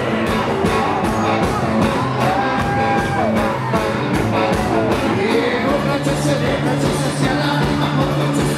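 Live rock band with a brass section playing an upbeat song over a steady drum beat, a male voice singing and calling out over it.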